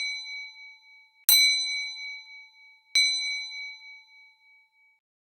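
A shop door bell rings as the timer's time-up signal. One ring is already fading, and the bell then strikes twice more about a second and a half apart. Each strike rings out clearly and dies away with a wavering fade.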